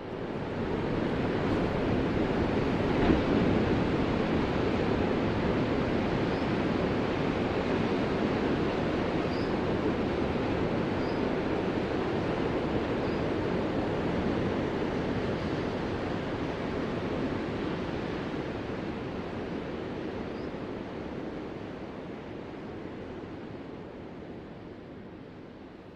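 Ocean surf: a steady, dense rush of breaking waves that fades in at the start and slowly fades away over the last several seconds.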